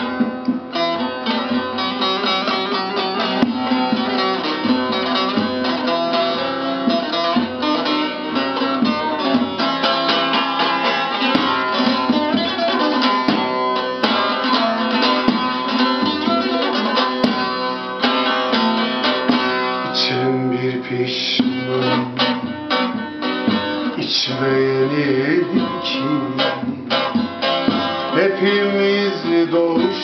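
Bağlama (Turkish long-necked saz) played with rapid picked notes over a steady low held note. A man's voice joins in singing near the end.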